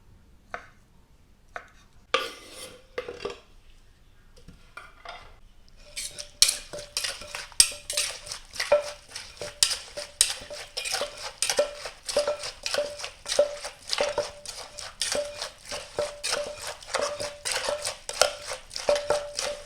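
Pestle pounding and mixing salad in a mortar: a few scattered knocks, then from about six seconds in steady strikes about three a second, each with a short ringing knock.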